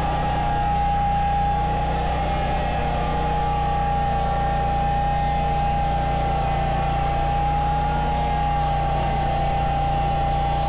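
Gas-engined portable sawmill running steadily while sawing a log into a plank: a constant high whine over a low engine drone.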